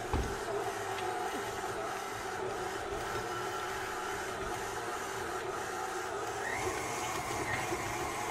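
KitchenAid tilt-head stand mixer running with its dough hook, kneading a heavy bread dough in a glass bowl. It gives a steady electric-motor hum and whine, rising slightly in pitch about six and a half seconds in.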